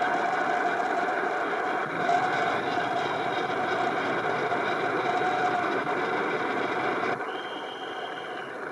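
Large crowd applauding and cheering, heard through the hiss of an early-1930s newsreel soundtrack; it dies down about seven seconds in, leaving the soundtrack hiss.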